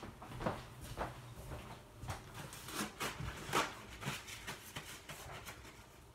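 Faint, irregular soft clicks and knocks, about three a second, from a person moving about and handling things in a kitchen; one knock about halfway through is a little louder than the rest.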